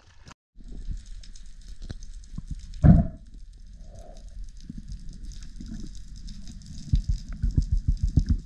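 Underwater sound heard through an action camera's waterproof housing: a constant fine crackle over low rumbling water noise, with a loud burst about three seconds in and a quick run of low thumps near the end.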